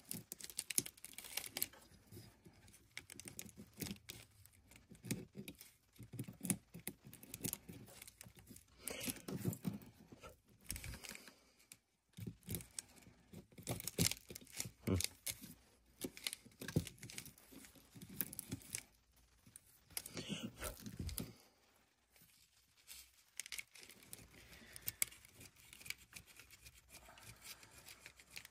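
Flat razor blade scraping and picking at a fossil fish in sedimentary rock: a run of short, irregular scratchy scrapes and ticks with brief pauses between them.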